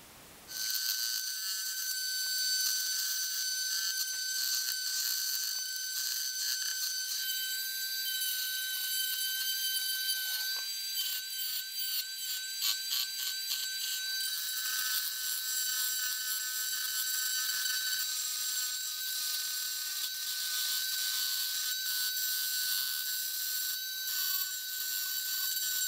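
Handheld rotary tool running at high speed with a steady high-pitched whine as its bit cuts a V-groove along a crack in ABS plastic. It starts about half a second in.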